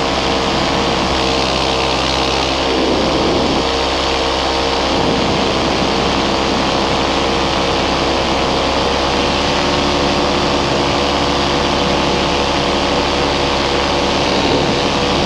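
Paramotor engine and propeller running steadily in flight, its even drone laid over a constant rush of air.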